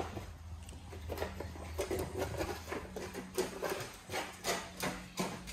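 A dog's claws clicking and tapping on a hard floor as she walks about, in irregular ticks a few times a second.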